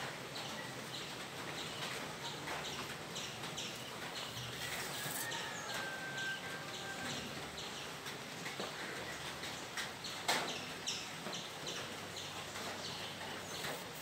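Small birds chirping repeatedly in the background, short high chirps a few times a second, with one sharp click about ten seconds in.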